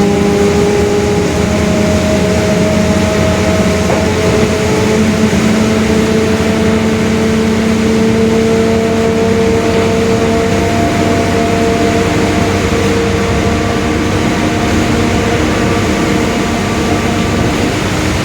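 Mercedes-Benz OF-1721 Bluetec 5 bus under way: the diesel engine runs with the differential droning, a steady whine tied to road speed. The pitch climbs slowly over the first half as the bus gathers speed, then holds steady.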